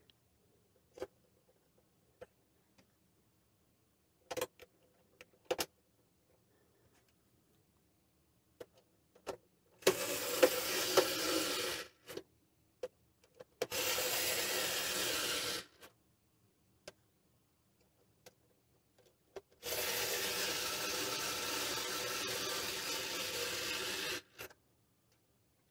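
Electric screwdriver driving Phillips screws into a slow cooker's housing, its motor running in three steady spells, the last and longest lasting about four seconds. Scattered light clicks and taps of parts come before the first run.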